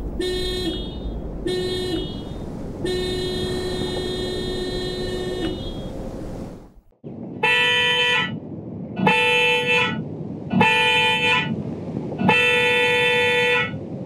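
A Mitsubishi Xpander's standard car horn sounds two short toots and one long one on a single note. After a brief pause, an aftermarket dual-tone snail-shaped Otoproject Superior Horn sounds four toots, louder and higher-pitched, with a brighter, fuller tone.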